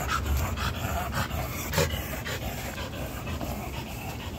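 American Pit Bull Terrier panting hard on the leash, about two quick breaths a second, easing off in the second half: the dog is tired and out of breath from the walk.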